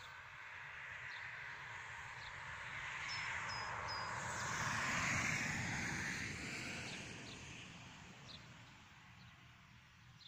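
A road vehicle passing: a broad rushing noise that swells to a peak midway and fades away again. A few short bird chirps sound about three seconds in.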